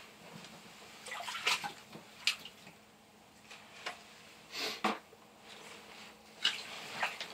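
Water splashing and sloshing lightly in an ice-fishing hole, in several short, separate bursts.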